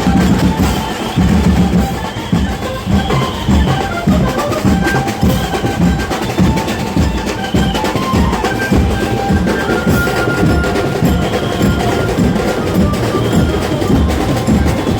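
Loud, fast drumming with a melody line playing over it, the music of a Ganpati procession band.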